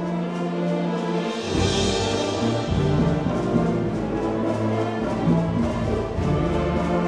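Youth symphony orchestra playing, with strings over a percussion section of congas and timpani keeping an even beat. A bright cymbal wash comes in about one and a half seconds in.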